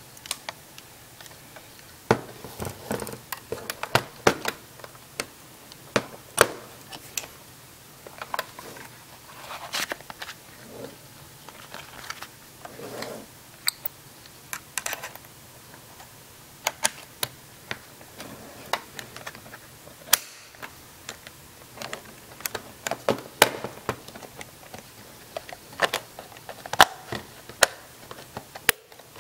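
Irregular clicks, taps and knocks with bits of rubbing as hands handle a Polaroid Automatic 250 Land Camera's body and front cover.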